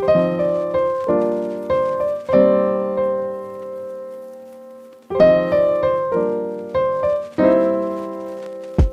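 Background piano music: notes and chords struck and left to ring out, in two phrases with a brief pause about five seconds in.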